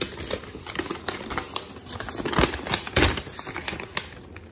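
Sheet of printed paper being unfolded and handled, crackling and rustling with many sharp clicks, with two louder thumps about two and a half and three seconds in.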